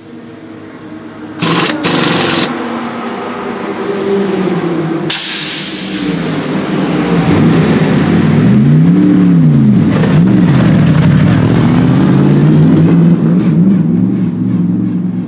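Pit stop on a Mercedes-AMG GT3: two short rattling bursts of a pneumatic wheel gun about a second and a half in, then a loud blast of air hiss around five seconds. After that the car's V8 revs rise and fall twice and settle into a steady run as it pulls away.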